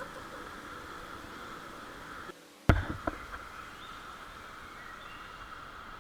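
Steady high-pitched outdoor drone. About halfway through it drops out briefly, then a sharp knock and two smaller knocks follow.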